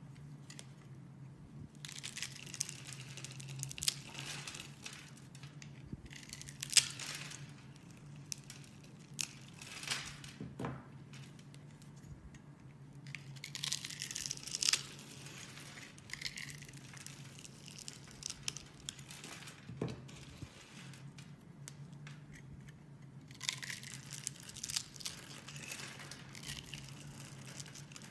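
A blade shaving through grid-scored bars of soap, the small cubes breaking off with a crisp crunching and crackling that comes in several separate stretches, with sharp clicks. A faint steady hum runs underneath.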